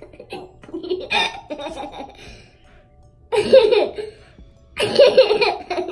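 Laughter in three loud bursts, the loudest near the middle and near the end.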